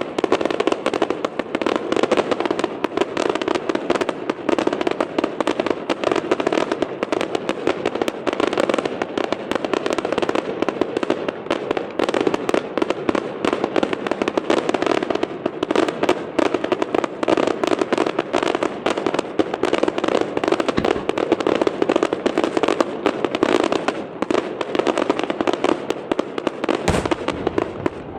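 Fireworks display going off in a dense, continuous barrage of rapid bursts and crackle, with one heavier, deeper boom about a second before the end.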